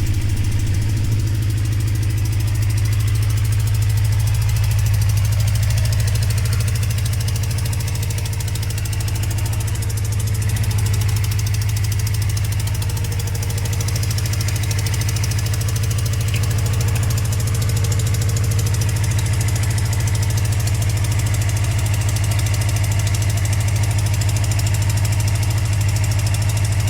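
Suzuki GSX-R 750 inline-four idling steadily on a cold start, with a ticking from a leak in the exhaust.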